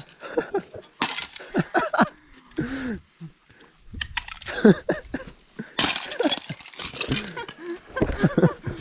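A thin sheet of ice over a frozen puddle being cracked and broken by hand, with repeated sharp cracks and the clink of loose ice pieces.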